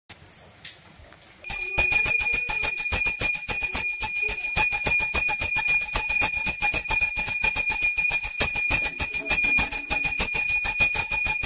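Puja hand bell (ghanti) rung quickly and without a break during worship: a fast run of many strikes a second with a bright ringing tone held over them. It starts about a second and a half in and stops just before the end.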